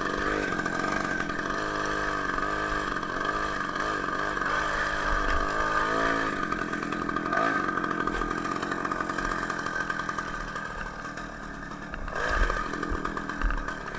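Homemade moped's Ural chainsaw two-stroke engine running under load while climbing a steep hill. The engine speed wavers, sags about eleven seconds in, and picks up again near the end.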